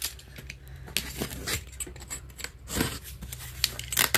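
Scattered light clicks, taps and scrapes from a cardboard shipping box being handled with a plastic utility knife (box cutter) on a table.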